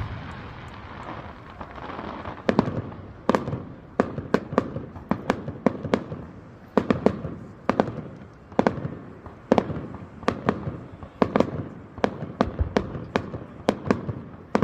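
Fireworks display: aerial shells bursting in a rapid, irregular run of sharp bangs, several a second. The run starts about two seconds in, after the fading tail of an earlier burst.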